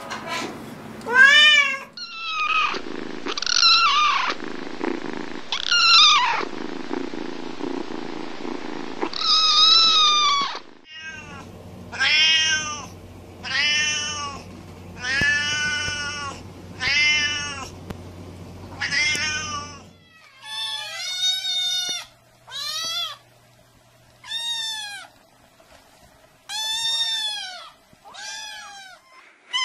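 Domestic cats meowing in a string of short clips. First come meows over a steady hiss, then a seal-point Siamese-type cat meows about once a second, then kittens give high-pitched mews with short pauses between them.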